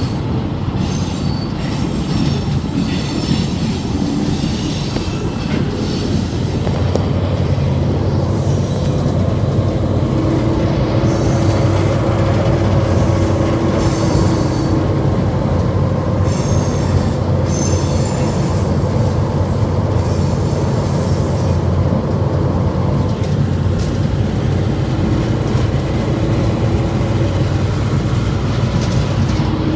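Diesel locomotive running steadily, heard from inside its cab: a constant low engine hum with the rumble of the wheels on the rails, and stretches of high-pitched wheel squeal in the middle.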